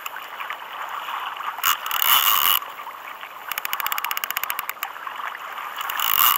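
Fishing reel ratcheting in a quick run of about fifteen clicks a second for a second and a half around the middle, under load from a heavy hooked fish. Water sloshes around the kayak in short bursts before and after.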